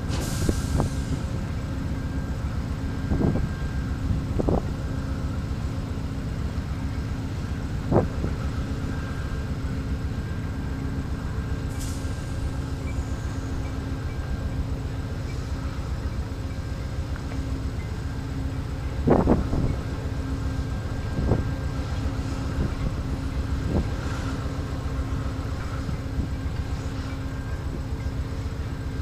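Amtrak diesel locomotive idling while standing at the station, a steady hum. Now and then a short knock sounds, the loudest about nineteen seconds in, and there is a brief hiss near the start and again about twelve seconds in.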